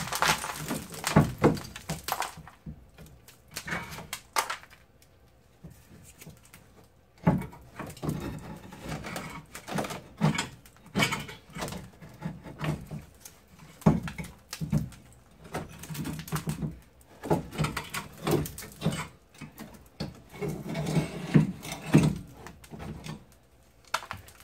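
Irregular metal knocks, clanks and scrapes as a Mazda MX-3's rear coil-spring strut assembly is worked loose and pulled out of the wheel well.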